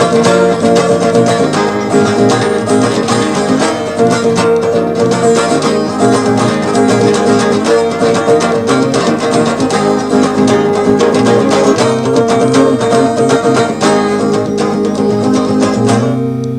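Baldwin 712 twelve-string semi-acoustic guitar played unamplified, a busy run of strummed chords with no singing, ending on a final chord left ringing about 16 seconds in.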